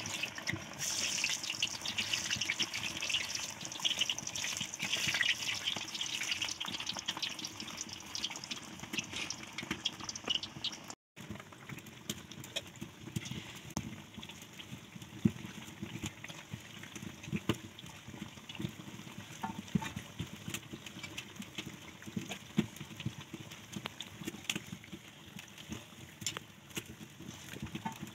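Masala pitha patties deep-frying in hot oil in an iron kadai: a steady crackling sizzle, loudest in the first ten seconds. After a short break about eleven seconds in, the sizzling goes on softer, with scattered sharp clicks.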